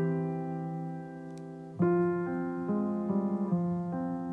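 Background piano music: a held chord fading away, then a new chord struck about two seconds in, followed by a run of notes changing every half second or so.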